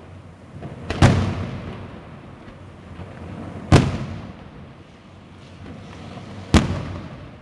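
Aerial firework shells bursting overhead: three loud bangs spaced a little under three seconds apart, each trailing off in an echoing rumble, with fainter crackling between them.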